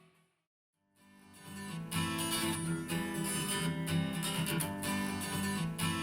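Music played back through desktop computer speakers: one track fades out to a moment of silence, then a song with strummed acoustic guitar fades in and plays at full level from about two seconds in.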